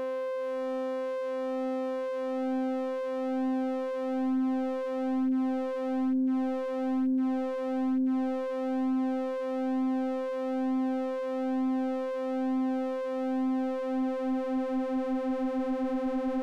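A Doepfer A-143-9 sine wave passing through a homemade precision-rectifier voltage-controlled filter, which folds it into a buzzy tone with many overtones. A lower note under it throbs about once a second as an LFO control voltage sweeps the filter, and the throbbing speeds up quickly near the end.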